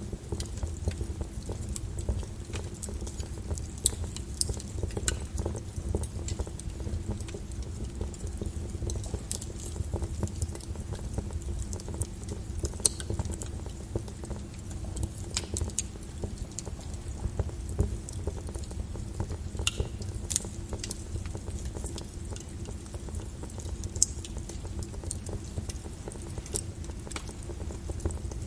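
Wood fire crackling with irregular sharp pops, over a steady low rumble and the patter of rain.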